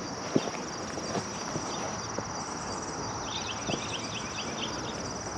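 Insects chirping in a steady, high, pulsing chorus, with a quick run of about eight short chirps a little past three seconds in. Faint scattered footsteps on dry grass and dirt.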